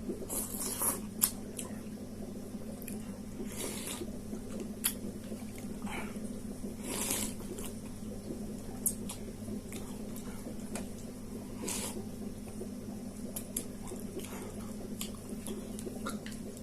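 Close-up mouth sounds of someone eating spicy noodles fast: irregular wet slurps and chewing. A steady low hum runs underneath.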